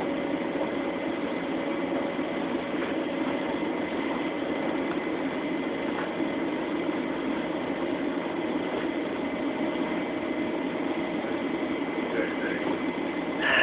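Long Island Rail Road electric train running, heard from inside the passenger car: a steady rumble with a faint hum and a thin high whine over it.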